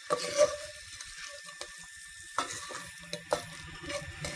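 Frozen spinach sizzling faintly with onions and garlic in a hot cast-iron Dutch oven as the cold food meets the hot pot. A wooden spoon stirs and scrapes against the pot, giving a few short knocks.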